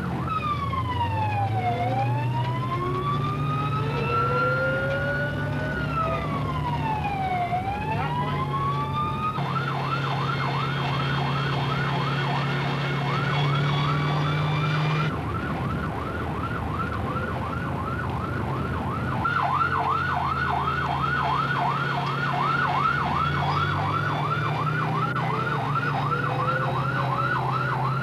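Airport fire tender's siren: a slow wail sweeps down and back up twice, then about nine seconds in it switches to a fast yelp, with the truck's engine droning steadily underneath.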